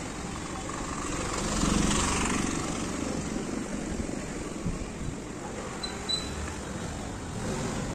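Street traffic noise, with a vehicle passing close and swelling louder about two seconds in.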